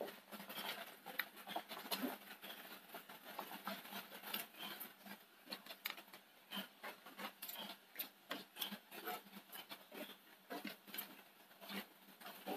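Thick coconut fish-curry gravy boiling in a clay pot: faint, irregular popping of bubbles, several a second.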